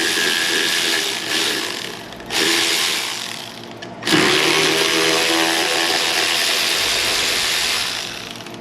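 Cordless power tool spinning an 8 mm fastener out, running steadily in three bursts: a stop about two seconds in, a short run that fades, then a longer run that winds down near the end.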